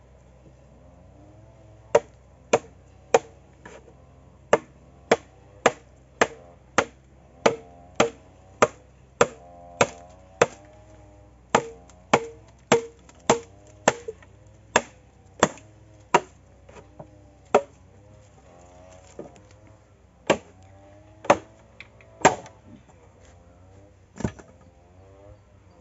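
A wooden baton striking the spine of a machete, driving the blade down through a bamboo culm to split it lengthwise: sharp knocks about two a second, thinning near the end to a few scattered, louder strikes.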